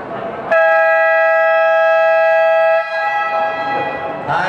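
Basketball gym's scoreboard buzzer sounding one long, steady, loud blast of a bit over two seconds that cuts off sharply, followed by fainter lingering tones. Near the end a second tone slides up in pitch.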